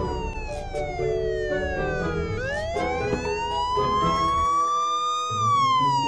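A wailing siren: its pitch falls slowly for about two seconds, rises for about three, then starts to fall again near the end, over background music.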